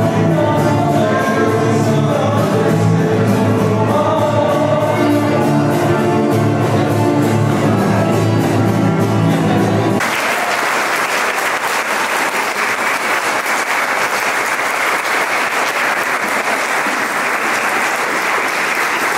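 A song with singing plays, then cuts off abruptly about halfway through, and an audience claps steadily for the rest.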